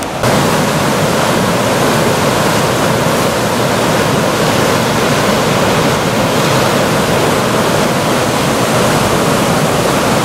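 River rapids: whitewater rushing steadily over rocks through a narrow gorge, loud and constant, coming in a step louder just after the start.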